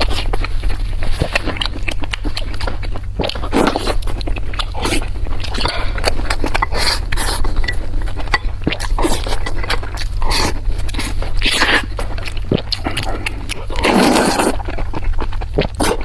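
Close-miked eating: chewing with many short wet smacks and small crunchy clicks, and a longer noisy mouth sound near the end. A steady low hum runs underneath.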